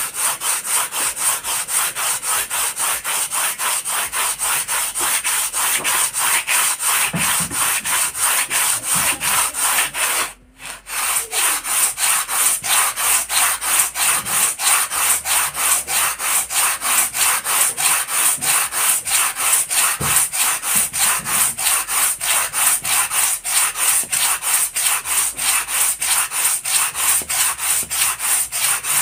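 Sandpaper on a wooden block rasped back and forth over a foam strip in quick, even strokes, about three or four a second, with one brief pause about ten seconds in.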